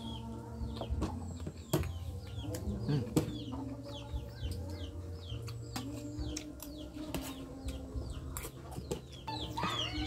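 Backyard chickens clucking and small birds chirping in quick repeated falling notes, with a few sharp clicks of a spoon against a plate and a steel bowl, the loudest about two and three seconds in.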